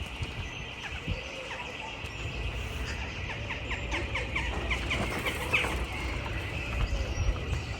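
Outdoor ambience with a low wind rumble on the phone's microphone, and a quick run of short clicking calls, about eight a second, for a couple of seconds in the middle.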